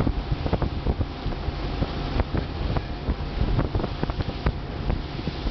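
Wind gusting across the microphone aboard a moving boat: an uneven low rumble and hiss broken by many short, sharp knocks.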